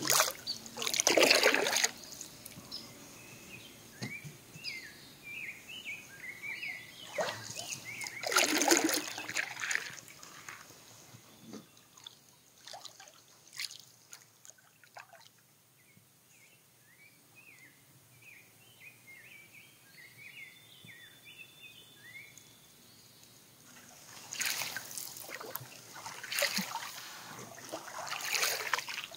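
Canoe paddle strokes: water splashing and trickling off a wooden paddle in loud bursts at the start, once in the middle, and several times near the end. Short high chirps sound in the quiet stretches between.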